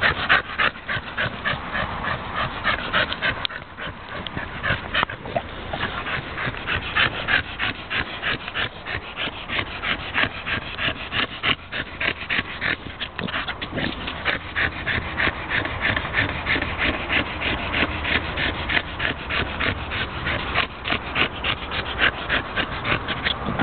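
Staffordshire Bull Terrier panting hard and fast, about four breaths a second, with a short quieter stretch a few seconds in.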